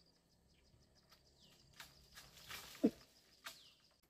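Quiet garden ambience: a faint steady high insect tone with a few faint chirps and clicks, and one brief falling call near the three-second mark, the loudest sound.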